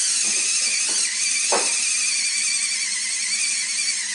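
Lego Power Functions L-motor held almost stalled by gripping its wheel, drawing close to 2 A at 9 V: a high, wavering whine with a few clicks in the first second and a half.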